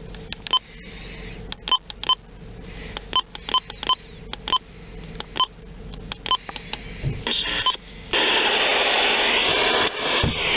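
A radio receiver giving about fifteen short, irregularly spaced electronic beeps, each a click with two fixed pitches. About eight seconds in, a loud, steady hiss of radio static takes over.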